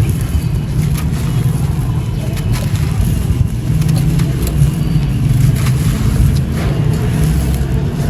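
Dry red dirt lumps being crushed and crumbled, giving a continuous crunching with many scattered sharp cracks over a heavy low rumble.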